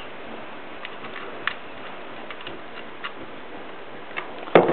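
Faint, scattered clicks of a power lead's round connector being fitted and screwed onto the back of a JVL Quickstep stepper motor, with one louder knock near the end.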